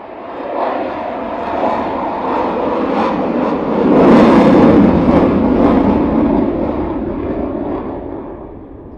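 Eurofighter Typhoon's twin Eurojet EJ200 turbofans passing overhead: jet noise builds to its loudest about four seconds in, then fades away as the jet moves off.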